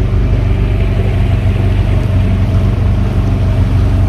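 A 115 hp Yamaha outboard on a Carolina skiff running steadily while under way, an even low engine hum with water and air noise over it.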